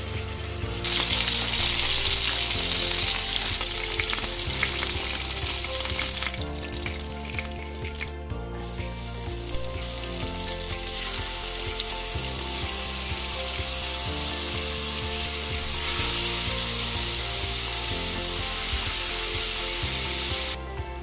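Chicken thigh pieces and chopped onion sizzling in hot fat in a frying pan. The sizzle is loud from about a second in, breaks off briefly about eight seconds in and swells again near the end, over quiet background music.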